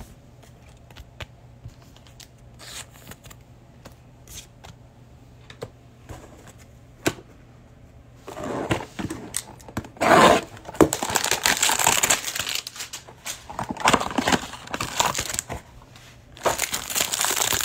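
A Donruss Optic football hanger box being torn open and the plastic wrapper around its cards crinkled. The first half holds only a few light handling clicks. The tearing and crinkling starts about halfway in and comes in loud bursts, loudest near the end.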